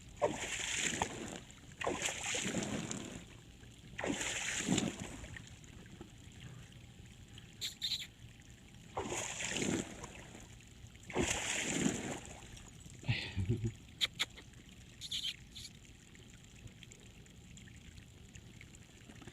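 Dogs splashing through pond water: a series of separate splashes, each about a second long, with a few short clicks between them.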